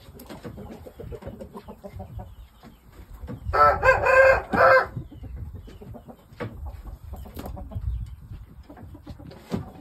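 A rooster crows once, a loud crow of about a second and a half, beginning about three and a half seconds in.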